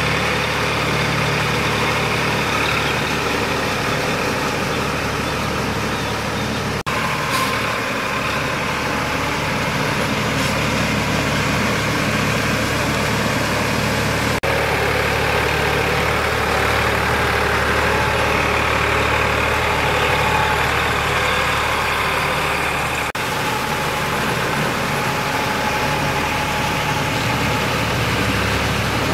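Sonalika DI 47 RX tractor's diesel engine running steadily while it pulls a rotavator through flooded paddy mud. The sound breaks off and picks up again abruptly three times.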